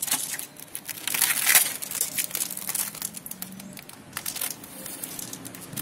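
Clear plastic packing tape crinkling and tearing as a taped aluminium can is pulled free from a cardboard box, in a dense run of crackles that is loudest about a second in.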